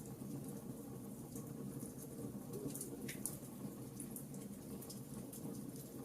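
Campfire burning, with irregular crackles and small pops over a low steady rumble. One sharper pop comes about three seconds in.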